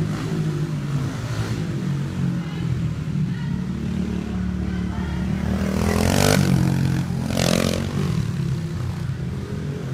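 Dirt bike engines running inside a large indoor motocross hall, with two louder bursts of revving about six and seven and a half seconds in.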